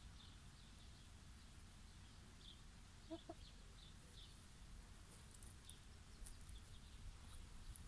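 Near quiet, with a domestic hen giving two short, soft clucks about three seconds in, and faint high bird chirps here and there.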